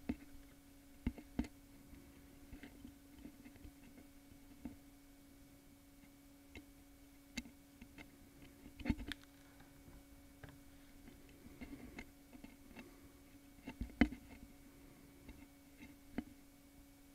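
Faint, irregular clicks and ticks from small metal cutting pliers and fingertips handling a rose seed as it is set between the jaws, the loudest about nine and fourteen seconds in, over a steady hum.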